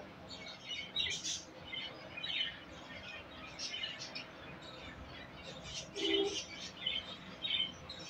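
Zebra finches chirping: many short, high calls scattered throughout, with a brief low sound about six seconds in.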